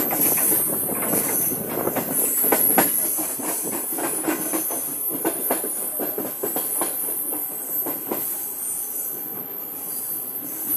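Sir Syed Express passenger train running along the track, its wheels clattering over rail joints in a quick, irregular run of clicks over a steady rushing noise, heard from aboard; the clatter slowly grows quieter.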